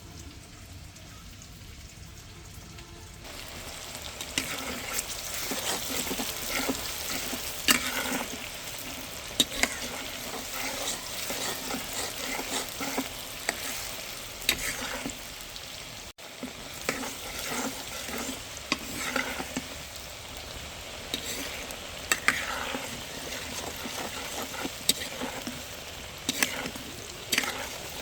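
Turkey frying in a pan with a steady sizzle, stirred with a utensil that knocks and scrapes against the pan many times. The frying gets louder about three seconds in.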